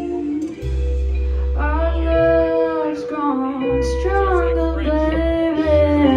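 A live band playing, with held low bass notes and a singer's melody coming in about a second and a half in.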